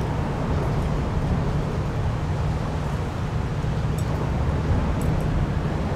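Steady low outdoor rumble, with a few faint high clicks about two thirds of the way in.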